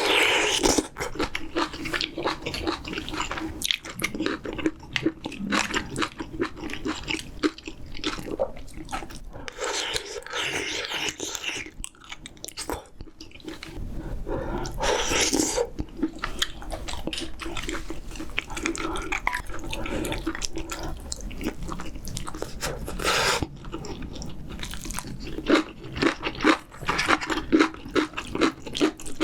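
A person eating close to the microphone: steady chewing with crunchy bites and wet mouth noises, and louder noisy stretches about ten and fifteen seconds in.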